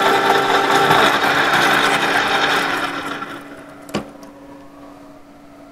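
An 18 mm four-flute HSS end mill on a conventional milling machine plunge-cutting into ST 41 steel: a loud cutting noise over a steady machine whine, which dies away about three seconds in. A single click comes near four seconds in, then the spindle runs on with a low steady hum.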